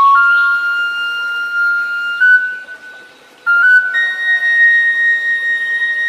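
Sundanese suling (bamboo flute) playing a slow melody of long held notes that step between pitches, with a short break about halfway through.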